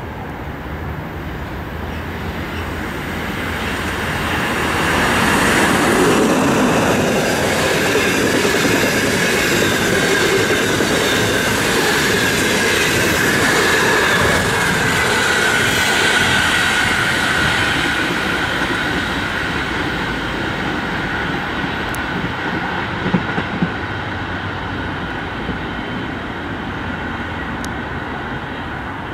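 An EP20 dual-current electric locomotive passes at speed hauling a passenger train, followed by the long run of coaches rolling by on the rails. The noise swells about five seconds in, holds with a thin whine that slowly drops in pitch, then gradually fades as the train recedes.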